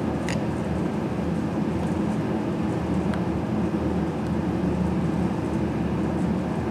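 Steady low drone of a shop heater running in the background, with a couple of faint clicks from wires being handled in a small relay junction box.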